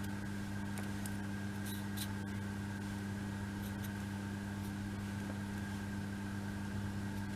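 Steady low electrical hum, with a few faint light clicks as small model pieces are handled and slotted in during the first few seconds.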